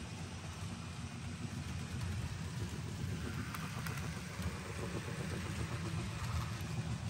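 N scale model train running on the layout: a steady low rumble from the locomotive and its freight cars rolling along the track, a little louder after about two seconds.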